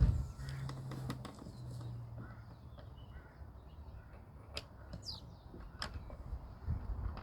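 A sharp knock, then scattered light clicks and knocks of parts being handled and pushed into place inside a car door, with a steady low hum for the first couple of seconds.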